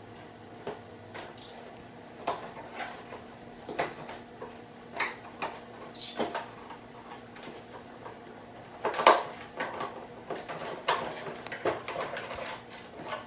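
Countersink drill bit set being unpacked and handled: scattered clicks, rattles and rustles of the case, packaging and metal bits, the loudest knock about nine seconds in.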